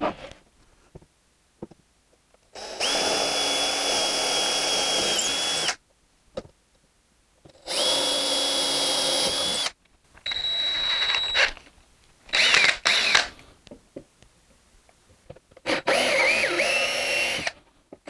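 Power drill boring a hole through pallet wood to start an oval handle cut-out. It runs in about five separate bursts of one to three seconds each, with quiet pauses and small knocks between them.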